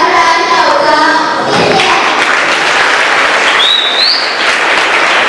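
A group of children finishes singing about a second and a half in, and an audience breaks into steady applause. A short high rising tone sounds over the clapping about four seconds in.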